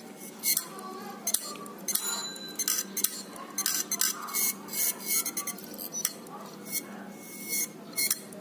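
Small metal parts being handled and set down, clinking and tapping in sharp, irregular clicks.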